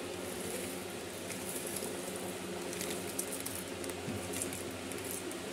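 Foil-lined cereal bag crinkling as cereal pieces are poured into a bowl of milk, with scattered light crackles and patters. A steady low hum runs underneath.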